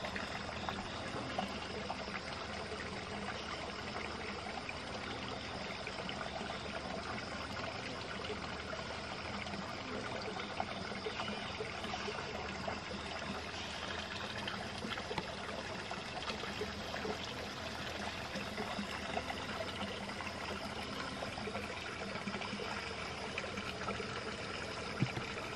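Running water trickling and babbling steadily, like a small stream.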